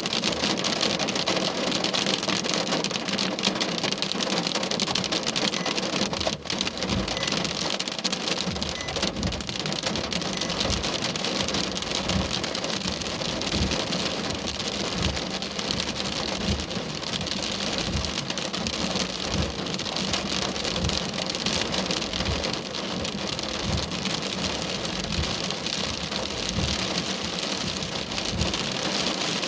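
Heavy rain falling in a thunderstorm, a dense steady patter of drops. From about seven seconds in, soft low thumps come roughly once a second.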